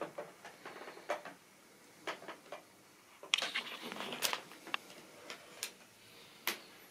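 Model railway train of tank wagons running along the track, with irregular light clicks and ticks from the wheels over rail joints and a busier patch of clatter about midway.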